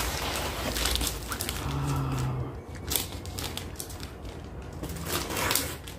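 Paper wrapper of a Viennetta ice-cream log being peeled off and crinkled by hand: irregular rustling and crackling, busiest in the first two seconds.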